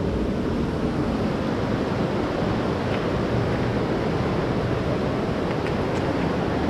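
Steady rushing noise of a river flowing through the gorge below the track, with a few faint ticks.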